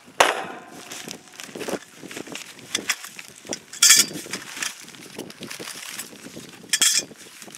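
Nylon carrying bag rustling while a tripod grill's metal parts clink and rattle as they are pulled out of it. A sharp metal clank with a short ringing tail comes just after the start, and two brief louder rustles about four and seven seconds in.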